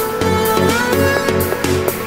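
Background electronic music with a steady beat and a melodic line.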